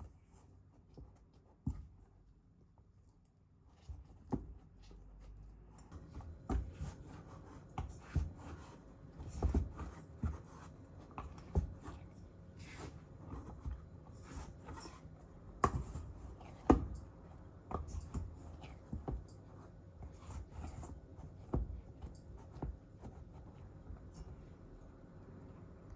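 Irregular light clicks, taps and rubbing of small things being handled by hand, with a few sharper knocks.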